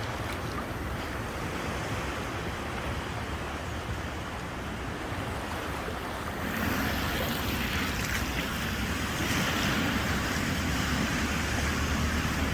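Ocean surf washing onto a beach, a steady rushing with wind on the microphone; the surf grows louder and brighter about six and a half seconds in.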